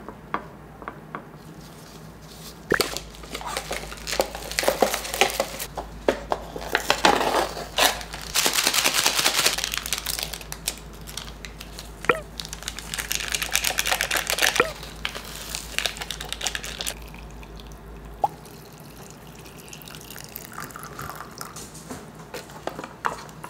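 Hot water poured into paper instant-noodle cups in two pours of about two seconds each, among small taps, clicks and crinkles of lids and packets being handled on a tiled table.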